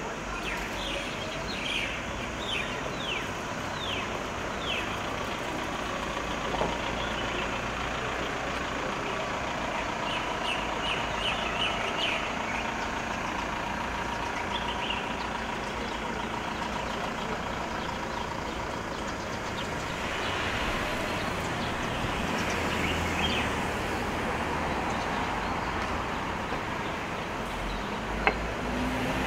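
Steady street traffic noise, with a bird chirping in quick runs in the first few seconds and again about ten seconds in.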